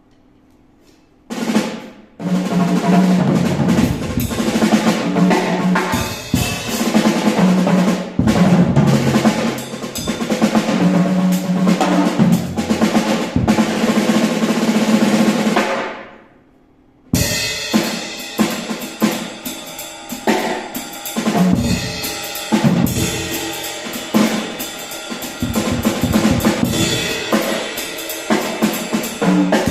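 Drum kit being played: a busy passage of snare, bass drum and rolls that fades out about sixteen seconds in, then after a short gap a second passage of sharp, rapid hits.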